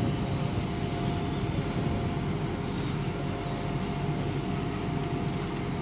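Diesel multiple unit's engines running steadily, a low rumble with a steady whine over it.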